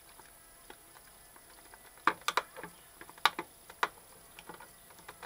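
Small screwdriver prying the glued keypad panel out of a Huanyang VFD's plastic front cover: scattered sharp plastic clicks and scrapes, starting about two seconds in.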